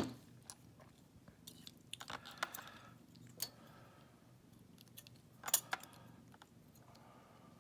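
Scattered light metallic clicks and clinks of a Schlage lock's parts being handled as the core is taken apart. The loudest click comes at the very start, a few more come about two seconds in, and a pair comes about five and a half seconds in.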